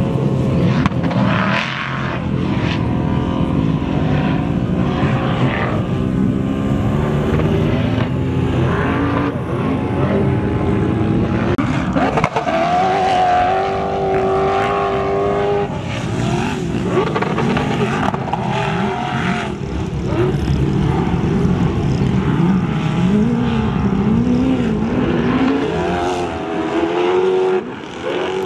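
Turbocharged sand buggy engines revving hard under load as the buggies climb a steep sand dune, the pitch rising and falling with the throttle. Midway an engine holds a steady high note for a few seconds.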